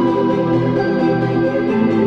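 Background music: slow ambient keyboard chords with held, organ-like tones.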